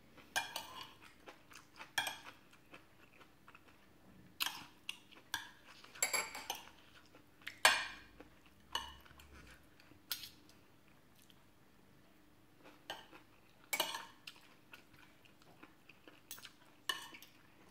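Metal spoon and fork clinking and scraping against a glass plate of rice and mushrooms, in irregular clicks about every second or so. The loudest clink comes about eight seconds in, and there is a quieter stretch just after.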